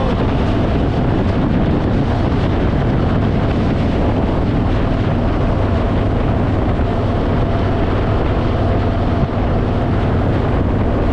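Harley-Davidson Fat Boy V-twin running steadily at cruising speed, under heavy wind noise on the microphone.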